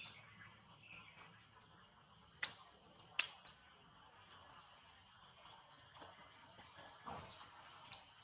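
A steady, high-pitched insect drone, with a single sharp click about three seconds in.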